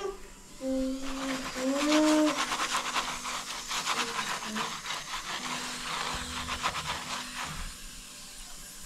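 Spatula working a paratha on a hot tawa as ghee is spread on it: a dense run of rough scraping and sizzling from about two seconds in, fading near the end. A couple of short held pitched notes come just before the scraping starts.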